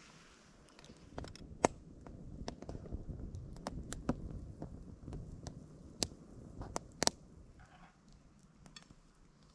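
Metal cookware and cutlery clinking during camp cooking: a series of sharp, separate clinks, the loudest about one and a half seconds in and two more near the end, over a low rumble of handling.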